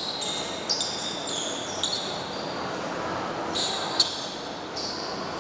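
Basketball shoes squeaking on a hardwood gym floor: about half a dozen short, high-pitched squeaks. A few sharp taps are mixed in, over the steady murmur of a large, echoing gym.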